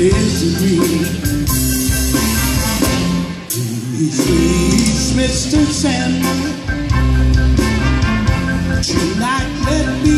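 Live band music played loud through large PA speakers: a horn section, keyboard and bass, with singing. The bass drops out briefly a few seconds in.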